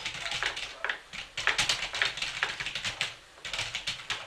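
Typing on a computer keyboard: quick runs of key clicks with two short pauses, stopping near the end.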